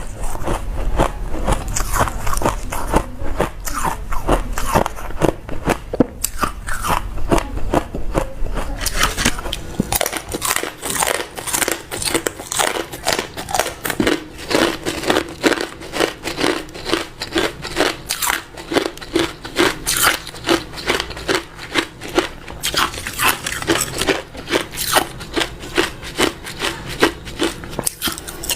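A person chewing hard ice close to the microphone, a long run of crisp crunches about two or three a second. A low hum under the first ten seconds drops away there.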